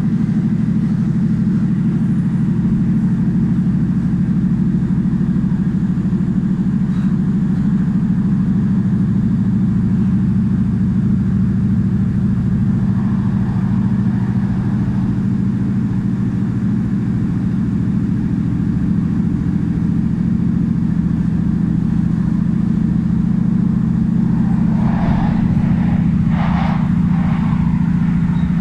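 Passenger train running along the track, heard from inside the carriage: a steady low rumble that holds an even level throughout.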